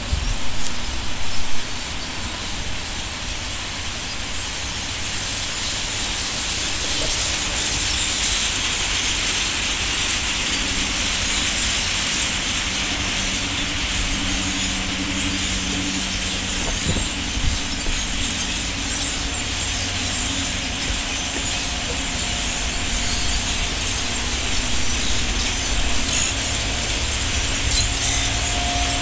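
A huge flock of small birds passing overhead, thousands calling at once in a dense, even chatter that swells over the first few seconds and then holds steady, over a low rumble.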